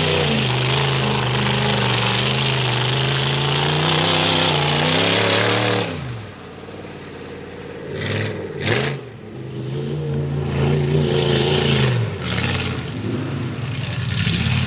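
Lifted Ford mud truck's V8 engine held at high revs for about six seconds, then the throttle suddenly drops off and the engine is blipped in several short revs.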